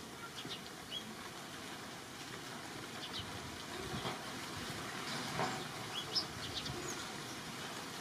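Steady outdoor background noise with scattered short, high bird chirps, the loudest a little past the middle.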